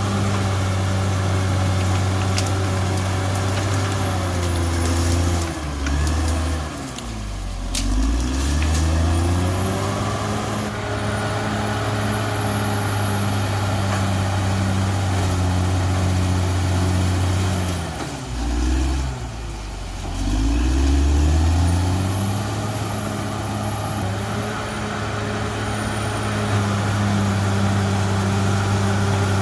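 Cat D6R XL bulldozer's diesel engine running steadily under work, its engine speed sagging and climbing back up twice, about a fifth and two-thirds of the way through. A thin high whine runs above it, with a few sharp clanks during the first dip.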